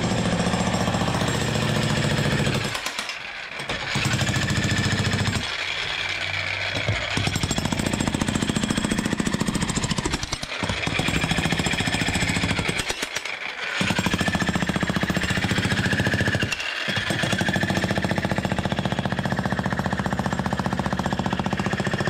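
Jackhammer chisel hammering rapidly into a concrete porch slab, breaking it up. It stops briefly several times between runs.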